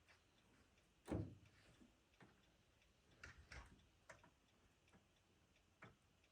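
Faint, irregular clicks and light knocks, the loudest about a second in and a small cluster a little past the middle.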